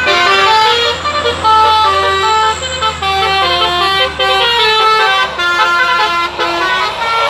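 Basuri-type telolet musical air horn on a vehicle playing a tune: a run of held notes stepping up and down in pitch, often several sounding together, over a faint low hum.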